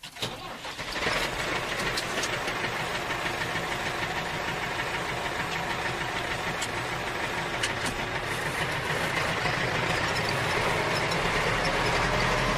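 Tractor engine running steadily with a chugging knock, building up over the first second and growing slightly louder toward the end.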